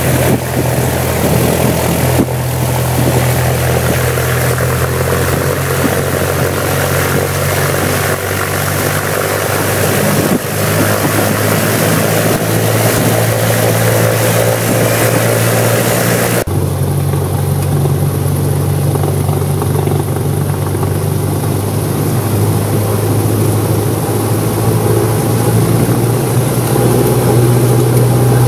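Cessna 172's piston engine and propeller running at taxi power, a steady drone heard from inside the cockpit. The hiss over the drone drops away abruptly about halfway through, and the sound grows slightly louder near the end.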